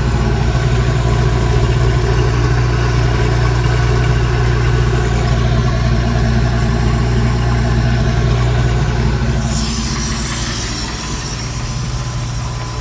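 Boat engine idling steadily, run out of the water on a garden hose feeding the drive unit. It sounds smooth and even.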